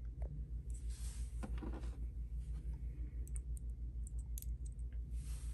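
Small metal screws and T-nuts clicking faintly as they are handled and threaded together by hand, with a cluster of tiny clicks past the middle and a low steady hum underneath.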